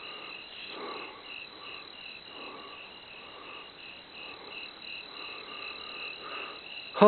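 Crickets chirping at night in even, rapid pulses, about three a second, with a fainter, lower chirp repeating at a slower pace beneath.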